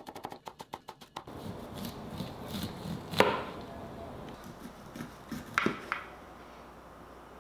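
A cleaver chopping scallions on a wooden cutting board in quick, even strokes for about the first second. Then a knife scrapes kernels off a corn cob over a metal baking sheet, with two sharp knocks about three and five and a half seconds in, the first the loudest.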